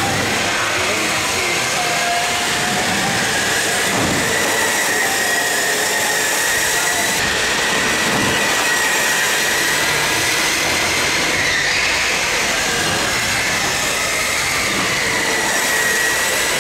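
Indoor racing go-karts passing on the track: a high motor whine that wavers slightly in pitch, over a steady noisy rush.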